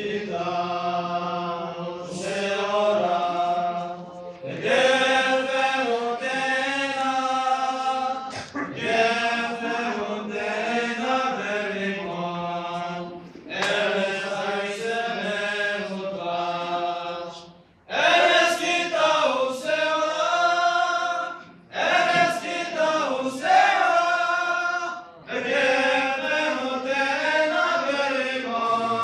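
A group of voices singing a song together in sung phrases a few seconds long, with short breaks between phrases.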